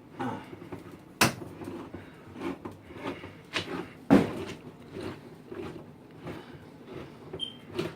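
A can of cherry pie filling being opened: a string of irregular metallic clicks and knocks with some scraping, a sharp knock about a second in and the loudest about four seconds in.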